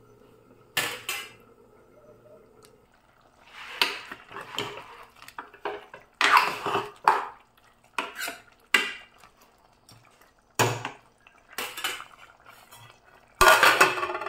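Metal spoon scraping and clinking against an aluminium pressure cooker as chicken in gravy is stirred, with a couple of sharp knocks on the rim. Near the end a metal lid clanks onto the cooker and rings.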